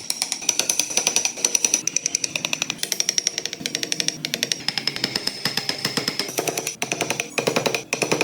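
Power carving tool hammering rapidly into wood, about six strokes a second, with a high whine over the strokes.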